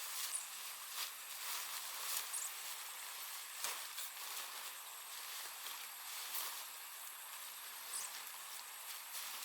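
Rustling with scattered light knocks and clicks, over a steady high hiss and thin tones, with a few brief high chirps.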